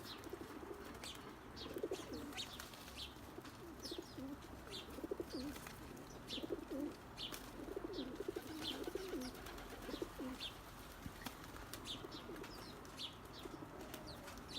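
Pigeons cooing over and over, with short, high chirps from other birds now and then.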